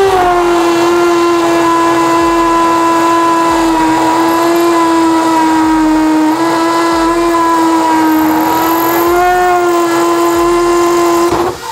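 Bosch GSB 185-LI 18 V cordless hammer drill boring into concrete with a 6 mm bit, the motor running at a steady high whine with a grinding rasp. Its pitch sags slightly a few times under load, and it stops just before the end.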